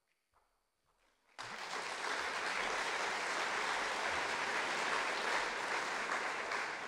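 Audience applauding, starting suddenly about a second and a half in after a moment of silence and holding steady.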